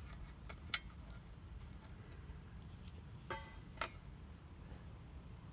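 Utensils clicking against camp cookware, with a few sharp clicks and one short ringing clink about three seconds in, over a low steady rumble.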